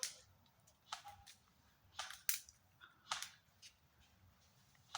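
Airsoft guns firing single shots: sharp snaps at irregular intervals, about one every half second to a second, the loudest just past two seconds in.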